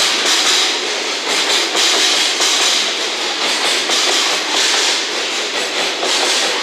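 Container wagons of a freight train rolling past at speed, the wheels clattering over the rails in a loud, steady rush with a repeating beat.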